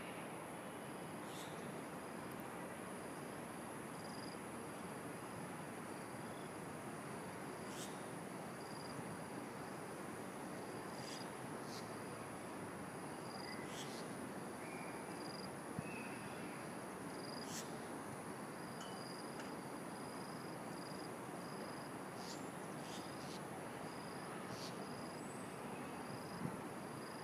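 Insects chirping in a steady high-pitched pulsing pattern over a constant hiss, with a few faint clicks now and then.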